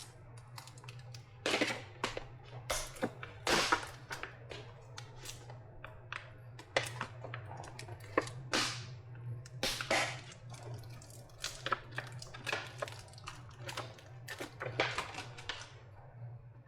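Irregular sharp crackles and short rips of adhesive tape being peeled off a lithium-ion battery pack, over a steady low hum.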